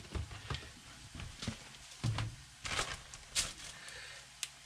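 Hands capping a plastic breadcrumb canister and sealing a plastic zipper bag: scattered rustles, clicks and soft knocks, with a dull thump about two seconds in.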